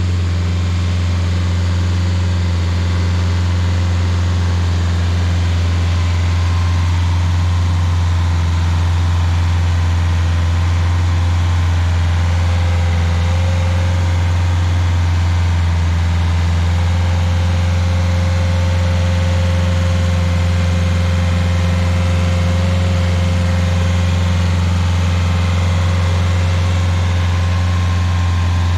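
Rayco RG50 stump grinder's engine running steadily with a deep, even hum while the machine moves across the chip pile. A faint thin whine joins in about midway and fades near the end.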